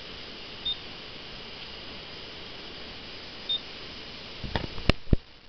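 Two short high electronic beeps, about three seconds apart, over a steady hiss, then a quick cluster of clicks and knocks near the end.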